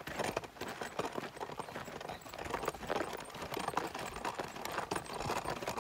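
Footsteps of a person walking on dry ground, a steady run of light steps at about two a second.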